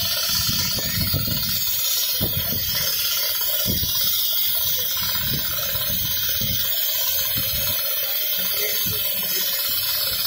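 Richpeace non-stop computerized sewing machine running as its head stitches across a quilted panel: a steady, loud hiss with irregular low thuds underneath.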